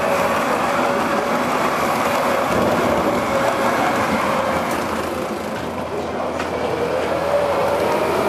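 O scale model train running along its track, a steady rolling rumble of wheels on rails with a faint humming tone that wavers in pitch. It eases off a little about six seconds in, then picks up again.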